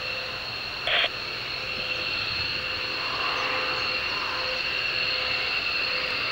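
An F-15's twin turbofan engines whining steadily on landing approach, slowly growing louder as the jet nears. A short loud burst of noise cuts in briefly about a second in.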